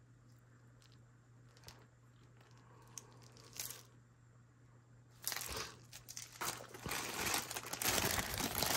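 Clear plastic zip-top bag crinkling and rustling as it is handled, starting about five seconds in and growing louder. Before it, only a few faint clicks over a faint steady hum.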